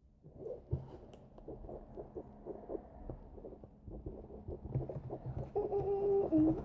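Irregular soft squelches and light knocks from stirring and handling a wet shaving-cream and glue slime mix in its container. A brief pitched, voice-like sound comes near the end.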